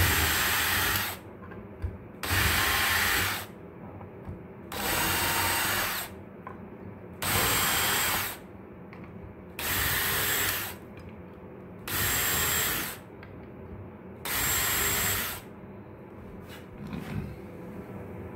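Cordless drill-driver running in seven short bursts of about a second each, pre-drilling pilot holes through the screw holes of a steel bracket plate into plywood with a centering pre-drill bit.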